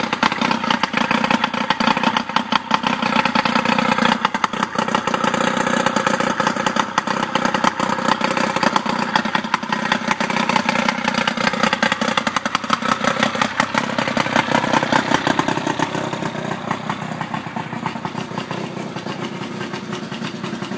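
Johnson 55 hp Seahorse two-stroke outboard running out of the water on its trailer, a fast steady firing rattle. Its note shifts a little partway through and it grows somewhat quieter over the last few seconds.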